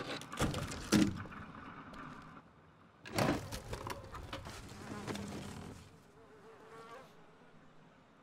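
Film sound effects of knocks and clatter, followed by heavy cloth rustling as it is pulled aside. A short squeak rising in pitch comes near the end.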